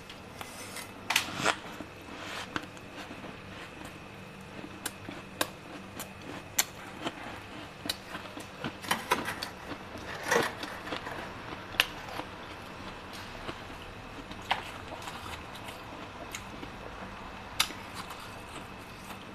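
Metal spoon scraping and scooping frost and ice from a freezer compartment's iced-up walls: irregular sharp crunching scrapes, a few of them much louder than the rest.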